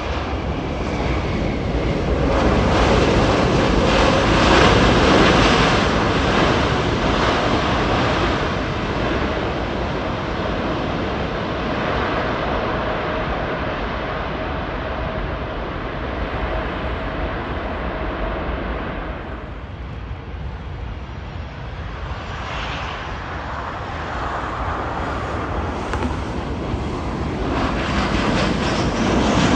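Jet airliner engines on landing rollout: a Boeing 787's engines run loud through the first half, then die down. After a lull, a Boeing 737-800's engines swell up near the end.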